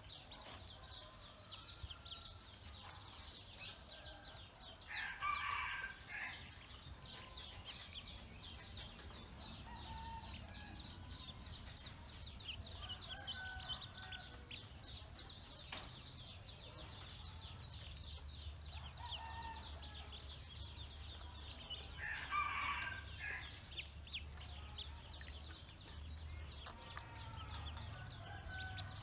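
A brood of Pekin ducklings peeping continuously, a dense stream of short, high-pitched peeps. Twice, about five and twenty-two seconds in, a louder, longer call from a larger bird sounds over them.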